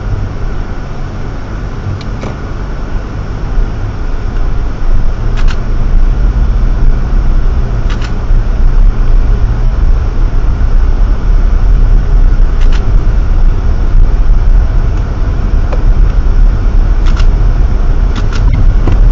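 Car driving on a snow-covered road, heard from inside the cabin: a steady low engine and tyre rumble that grows louder a few seconds in, with a handful of short knocks.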